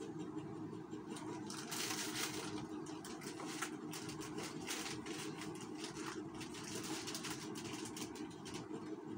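Plastic sachet strips crinkling and rustling as they are handled, coming and going in short bouts and loudest about two seconds in, over a steady low mechanical hum.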